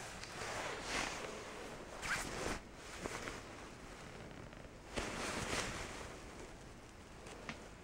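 Rustling of a long quilted down coat's shell fabric as it is handled, in several short swishes, with its zipper being worked.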